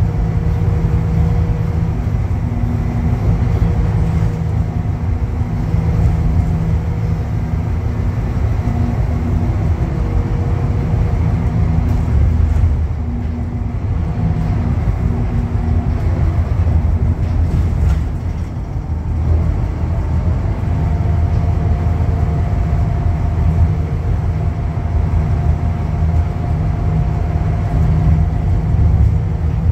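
Scania K310UB bus running at road speed, heard inside the passenger cabin: a steady low drone from its rear-mounted diesel engine and driveline. The note eases off briefly about eighteen seconds in, then pulls again with a new steady tone a few seconds later.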